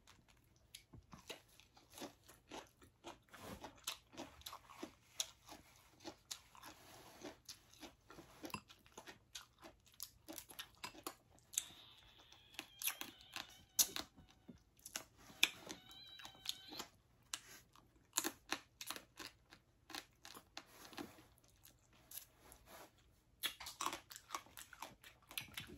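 Close-up chewing and crunching of salted marsh crab (ba khía) wrapped in lettuce and herbs, with irregular crunches throughout.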